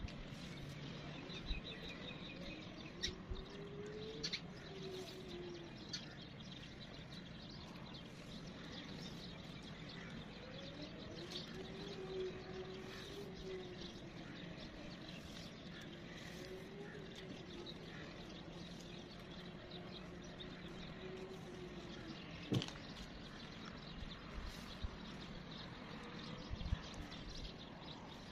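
Outdoor ambience with birds chirping, a few sharp light clicks and taps from handling a wire clothes hanger, the loudest about two-thirds of the way through, and a faint, long wavering tone through the middle.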